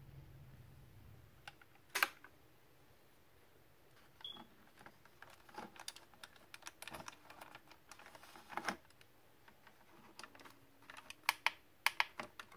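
Scattered small clicks and taps of fingers handling a 1/24-scale diecast model police SUV, with a sharp click about two seconds in and a quick run of clicks near the end.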